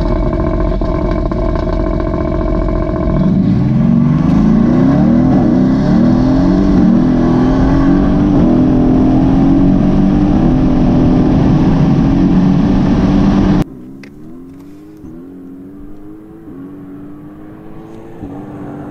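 Mercedes-AMG GT's twin-turbo V8, heard from inside the cabin, held at steady revs in first gear, then accelerating hard from about three seconds in, its pitch climbing and dropping back through a run of quick upshifts. Near the end the sound switches to the car heard from outside, farther off and quieter, still accelerating with its pitch rising and dropping at each shift.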